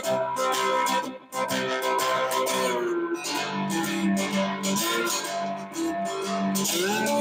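Three-string ammo-can guitar (cigar box guitar style) played with a slide: picked notes and chords, with the pitch sliding down about three seconds in and gliding up near the end.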